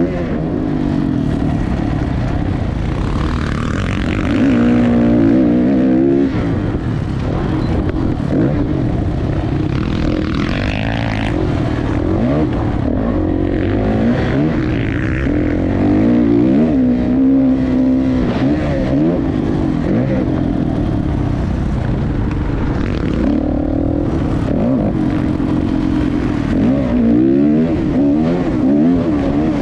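Motocross dirt bike engine running hard. Its pitch rises and falls again and again as it revs up and backs off, over a constant low rumble.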